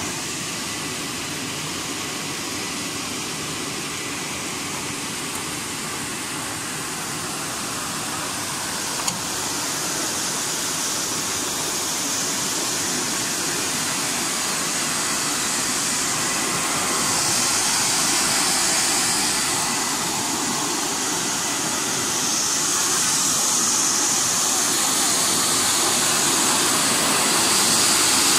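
Air-blowing fans of a French-fry air-drying machine blowing over the mesh conveyor belt to cool the fries and strip off surface oil after frying. It makes a steady rushing hiss that grows louder toward the end, with a single short click about nine seconds in.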